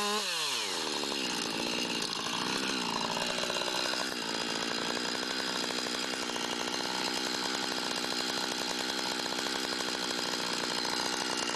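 Two-stroke chainsaw dropping from high revs down to idle in the first second, revving up and down once more around two to three seconds in, then running steadily at idle.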